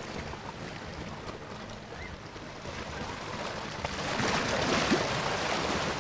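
Sea waves washing and splashing among shoreline boulders, a steady rush that swells into a louder surge about four seconds in.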